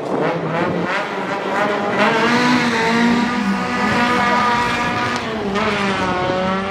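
Two small cars launching off a drag-strip start line and accelerating hard away, their engines revving up with rising pitch and a gear change about five and a half seconds in.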